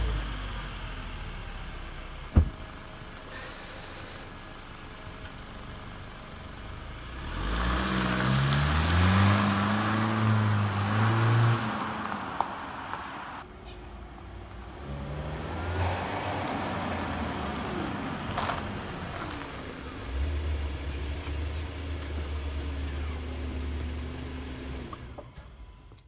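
Audi Q7 2.0T turbocharged four-cylinder engine and exhaust. It runs low, with a single sharp thump about two seconds in. It then grows louder and climbs in pitch for several seconds as it accelerates, drops away, and later settles into a steady low drone that fades out at the end.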